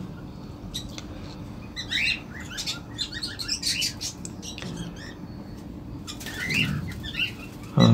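Cage birds chirping in short runs of quick high chirps, about two seconds in and again near the end, over a low steady hum.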